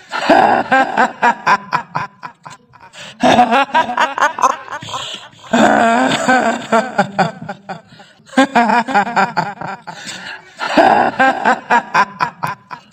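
A woman's cackling 'hihihi' laugh, the ghost laugh of the kuntilanak, in about five bouts of rapid pulses with short pauses between them.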